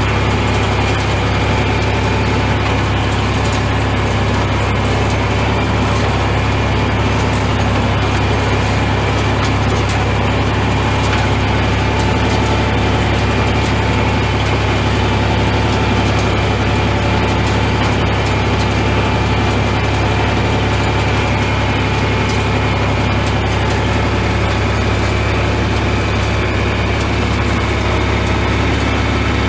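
John Deere 4020 tractor engine running steadily at an even speed.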